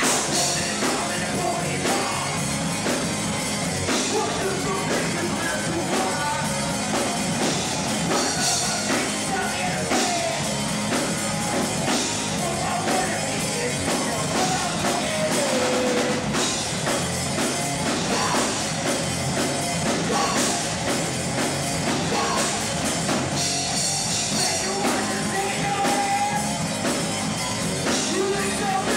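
Live rock band playing in a bar: drum kit, amplified guitars and a singer.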